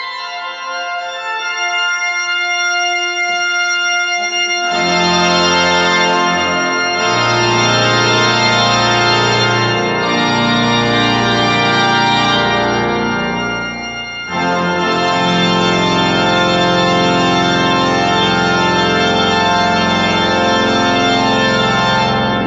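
The Newberry Organ, a large pipe organ, playing sustained chords. It starts softer, then swells to full organ with deep pedal notes about five seconds in. After a brief dip about two thirds of the way through, a long loud chord is held.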